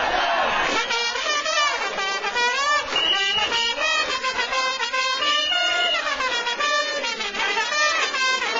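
Cheering-squad trumpets playing a baseball batter's fight song: a quick, bright brass melody of short notes with a few held ones.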